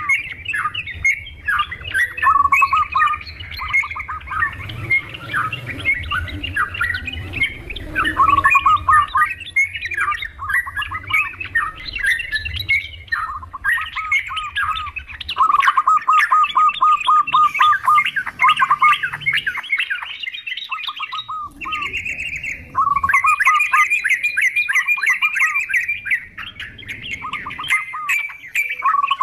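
Yellow-vented bulbuls chattering and calling together with zebra doves cooing, many calls overlapping, with runs of rapid repeated notes; a lure recording of both species in full song.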